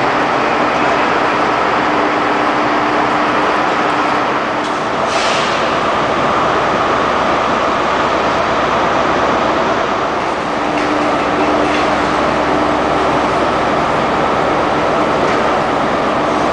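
Loud, steady din of trains standing in a large railway terminus under its train shed roof: a constant rumble and hum carrying a couple of faint steady tones, with a short hiss about five seconds in.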